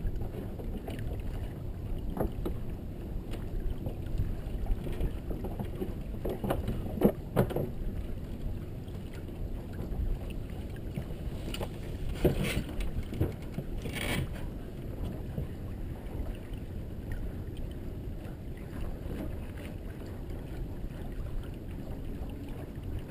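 Steady rumble of wind on the microphone and water rushing along the hull of a Merit 25 sailboat under way, with a few short knocks in the middle.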